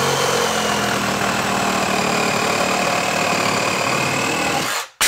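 Ryobi P519 18V brushed cordless reciprocating saw with a wood blade cutting through a 2x4, running steadily at full speed for about five seconds and stopping suddenly as the cut is finished. A brief clatter follows right after it stops.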